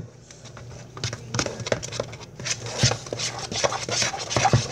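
A spoon stirring pancake batter in a bowl, with irregular clicks and scrapes against the bowl.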